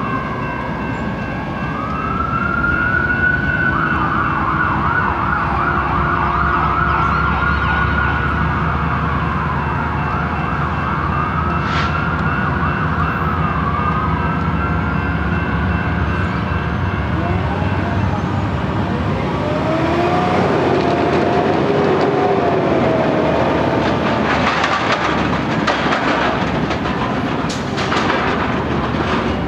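An emergency-vehicle siren wails in repeated rising and falling sweeps over the low rumble of a departing freight train, while a grade-crossing warning bell rings and stops a little past halfway. Near the end a heavy truck rattles over the crossing.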